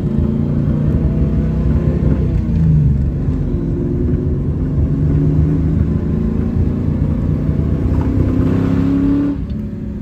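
1995 Ford Mustang GT's 5.0-litre V8 pulling under acceleration, heard from inside the cabin. The pitch dips and climbs again about a third of the way in, rises late on, then drops off suddenly near the end. The owner finds it misfiring in the mid RPM range.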